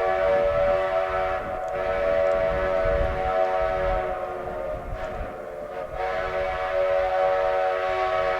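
Steam locomotive whistle, on Denver and Rio Grande Western 2-8-0 No. 315, sounding one long held blast with several notes at once. It eases briefly about five seconds in, then swells again.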